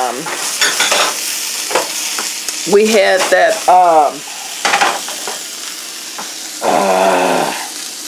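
Sausage frying in a pan, a steady sizzling hiss, with a few small clicks. A woman's voice cuts in briefly twice, around three seconds and seven seconds in.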